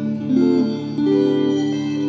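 Guitar improvising: a melody of sustained plucked notes over a held low note, the notes changing every half second or so.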